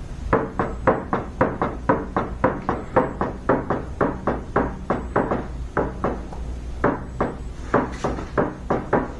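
A walnut board rocking on a hump against a flat surface, knocking quickly and evenly about three to four times a second, with a short break about six seconds in. The knocking shows that the board is not flat.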